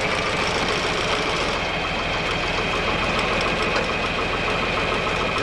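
Tractor engine running steadily at idle, with a steady high whine over the rumble.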